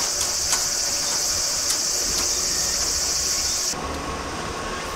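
Insects droning in a steady, high-pitched chorus over a low rumble. About three and a half seconds in, the insect sound cuts off suddenly, leaving the low rumble and a faint steady whine.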